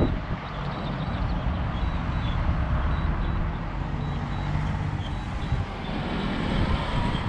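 Steady outdoor rumble of wind and road traffic, with faint short high beeps repeating every second or so, typical of a DJI remote controller's return-to-home alert.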